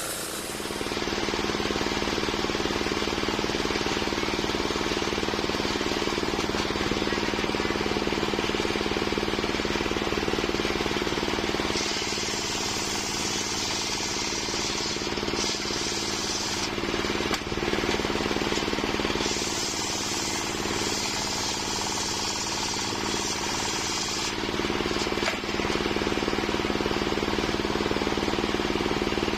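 Homemade engine-driven circular sawmill running steadily with a constant low hum. Twice, from about 12 seconds in and again from about 19 seconds in, a higher hiss joins for four to five seconds as the blade cuts through waru wood.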